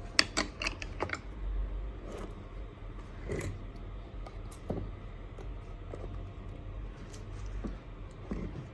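Metal tire spoons clicking and scraping against the wheel rim while a rubber scooter tire is levered onto it, with scattered short clicks and knocks, several close together in the first second.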